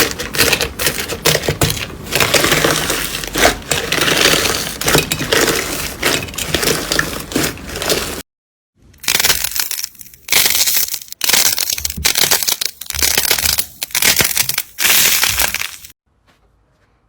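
Slime being pressed and squeezed by hand, giving dense, crackling pops. It breaks off about eight seconds in. Then comes a run of separate crackling squeezes, a few each second, which stop shortly before the end.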